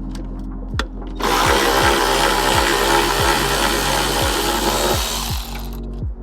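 A power tool runs steadily for about four and a half seconds, starting about a second in and stopping near the end, likely spinning out a seat-belt mounting bolt. Background music with a steady beat plays underneath.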